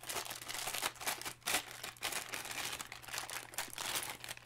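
Clear plastic bag crinkling and rustling in an irregular run of crackles as hands work a small handheld recorder out of it.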